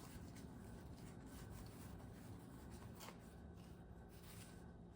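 Faint rustling and flicking of paper banknotes being handled and counted, a few soft papery ticks over a quiet room hum.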